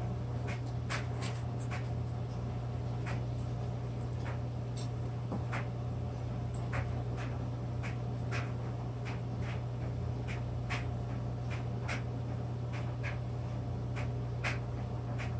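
Small irregular clicks and scrapes of a spoon working green icing in a glass bowl and onto a graham cracker, over a steady low hum.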